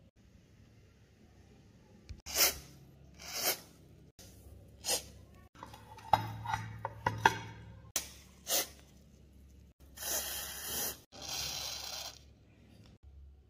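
Aerosol lubricant sprayed through its red straw nozzle onto a rusty pistol: about five short hisses, then two longer hisses of about a second each near the end. Light clicks and handling knocks come in between.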